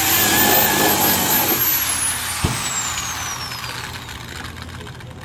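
Corded electric drill driving a screw into a wooden bookshelf panel at full speed. About two seconds in it is released and its motor winds down with a falling whine. A single knock comes near the middle.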